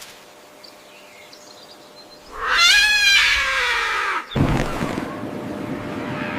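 A drawn-out animal call with a wavering, falling pitch, lasting about two seconds, that cuts off suddenly and is followed by a noisy rushing sound.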